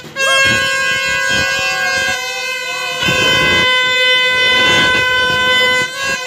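Several plastic toy trumpet horns blown at once in loud, steady held blasts, layered on each other, with a dip a little before the end; voices shout in the crowd among them.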